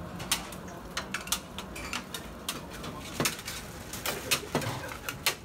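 Irregular sharp metallic clicks, clacks and scrapes as a doner knife and steel tongs strike the steel counter and trays, several a second, over a low steady background hum.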